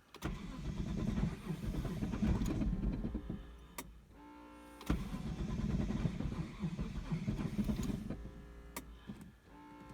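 Starter cranking the Mitsubishi 3000GT VR4's twin-turbo V6 on a cold start without it catching: about four seconds of cranking, a short break, then about three more seconds of cranking. This is the car's cold hard-start fault: it cranks readily on a new, fully charged battery but will not fire.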